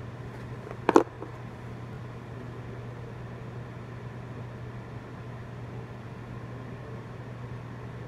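Steady low hum of a fan or appliance, with one sharp knock about a second in.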